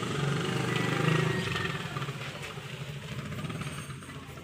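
A vehicle engine running with a fast low pulse, loudest in the first second and a half, then fading as it moves away.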